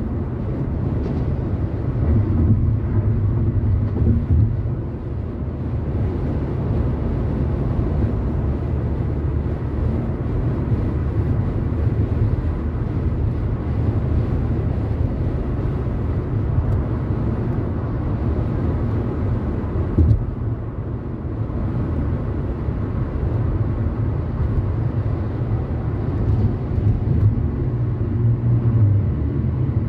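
A car driving at freeway speed: a steady low rumble of tyres on the road and engine, with one short thump, like a road joint, about two-thirds of the way through.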